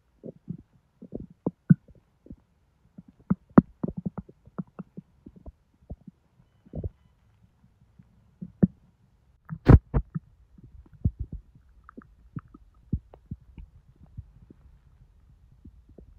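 Bowel sounds of a distended belly digesting a large junk-food meal: many short, irregular gurgles and pops from the stomach and intestines, with one sharp, louder pop about ten seconds in.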